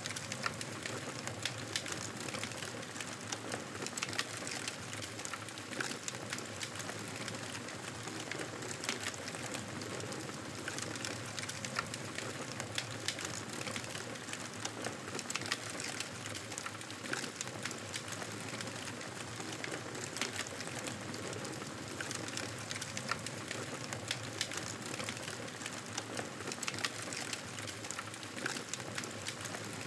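Campfire burning: a steady hiss of flames with frequent sharp crackles and pops.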